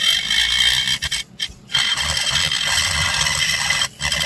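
High-speed rotary tool with a burr grinding metal out of a Homelite XL922 chainsaw crankcase, trenching the transfer passage: a steady high whine with grinding. It runs in two spells, broken briefly after about a second, and drops away near the end.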